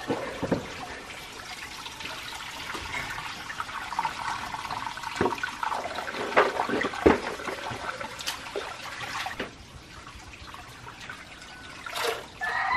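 Water sloshing and splashing in a plastic bucket as a hand scoops small, hard green manzanillas out of it, with irregular knocks of the fruit against the bucket and drips of water. Near the end the wet fruit is put into a metal cooking pot.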